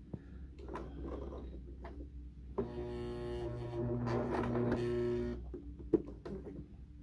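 Electric sewing machine stitching slowly through coiled cotton rope. The motor whines steadily along with the needle's stitching for about three seconds from near the middle, after soft handling rustles and small clicks. A single sharp click comes about a second after it stops.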